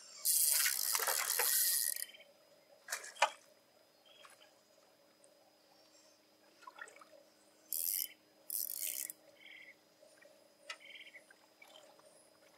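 A loud rush of water splashing for about two seconds, then a sharp knock. Birds call from the reeds in two short bursts near the middle.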